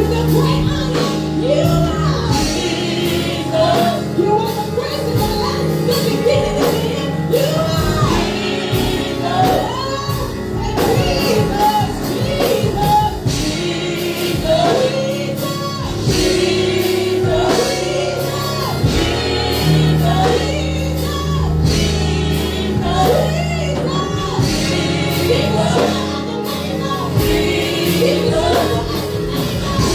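Gospel music: voices singing in a congregational or choir style over an instrumental accompaniment with held low notes and a steady beat.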